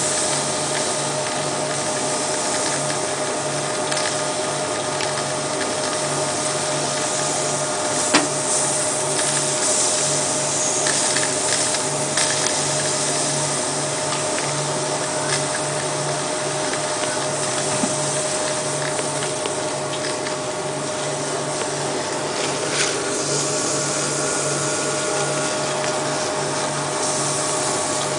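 Sawdust briquette press driven by an electric motor, running steadily: a constant mechanical noise with a steady whine and a low regular pulsing, and a few sharp clicks.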